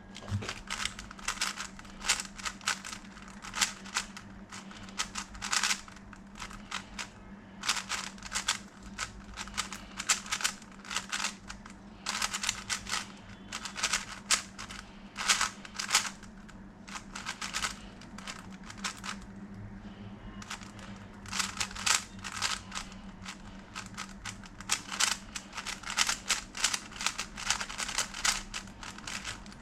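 Valk 4 magnetic 4x4 speedcube being turned fast, its unlubricated plastic layers clacking in quick flurries of clicks with short pauses between them.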